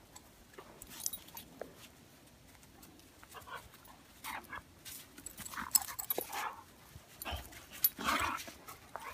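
Dogs playing close by, a Newfoundland with Airedale terriers, panting and moving about. The first few seconds are quiet, then scattered short breathy and rustling sounds begin about three seconds in. There is no barking.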